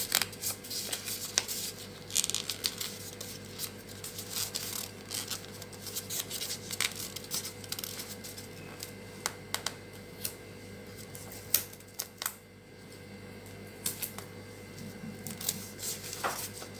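Glossy gift-wrapping paper being folded and creased by hand around a small box: irregular crisp crinkles, rustles and small clicks.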